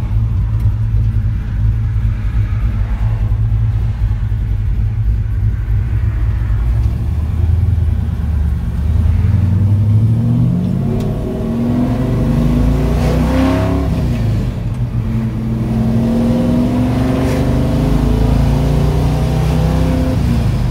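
355 small-block V8 with Hooker headers and dual exhaust running steadily, then accelerating with its pitch rising, falling back about fourteen seconds in as it shifts, and rising again.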